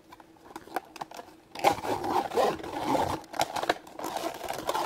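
Crinkling and scraping of plastic toy packaging being handled, with small clicks, starting about a second and a half in.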